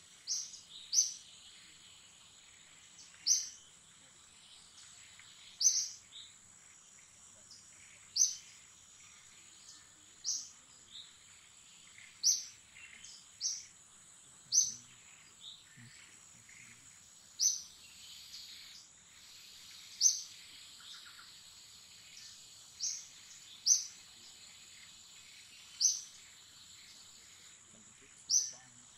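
A bird repeats a short, high chirp about every two to three seconds, several of them in quick pairs, over a steady high-pitched drone of forest ambience.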